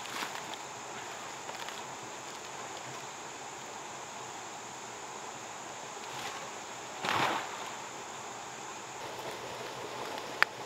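Steady insect chirring in the background, with rustling of large leaves being handled and carried. A louder burst of rustling about seven seconds in, and one sharp click near the end.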